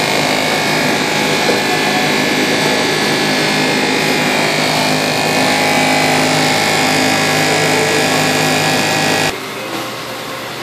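Automatic egg washer running: its 12-volt DC pump hums steadily while its water jets spray, a steady hum over an even hiss of water. About nine seconds in the sound drops abruptly to a much quieter level.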